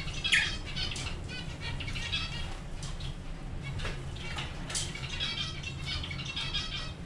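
A pair of lovebirds chattering, with rapid strings of high chirps throughout and a louder chirp near the start.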